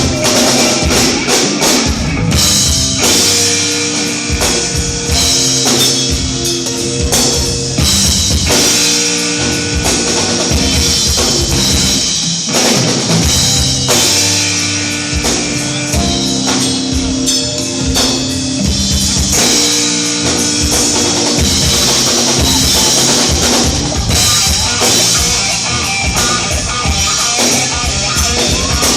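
A rock band playing live: a drum kit and guitars over bass in an instrumental passage, recorded from the audience.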